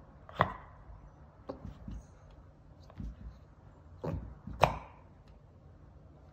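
Two sharp knocks, one about half a second in and a louder one near the end, with a few fainter taps and low thumps between them.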